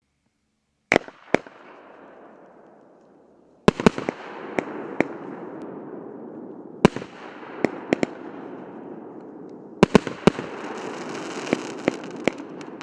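Firework cake firing: two sharp shots about a second in, then after a short lull a steady run of bangs from about four seconds in, irregularly spaced, over a continuous crackling hiss from the bursting stars.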